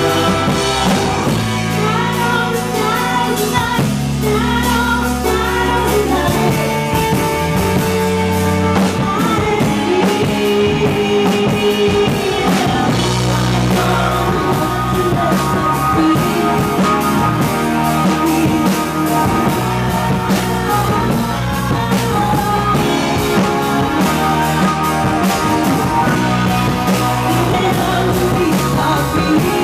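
Live band playing a rock song on synthesizers and keyboards, electric guitar and drums, with a woman singing.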